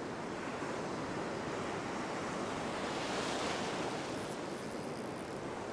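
Ocean surf breaking and washing through the shallows, with one wave surging in louder about three seconds in.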